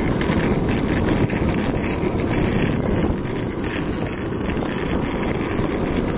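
Longboard rolling over pavement: a steady rumble of wheels with a rattling noise from the board whose cause the rider cannot place, and wind buffeting the microphone.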